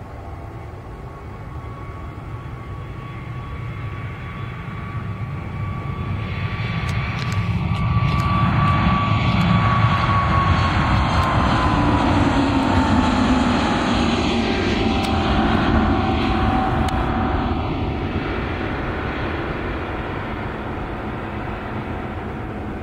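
Airbus A321neo's two CFM LEAP-1A turbofans at takeoff power, growing louder as the airliner rolls and lifts off. Their whine drops in pitch as it passes, and the sound fades as it climbs away.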